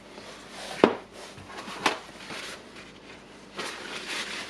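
Hand work on the striker parts of a dismantled Bosch rotary hammer drill: two sharp knocks about a second apart, then a scratchy rubbing from about three and a half seconds in.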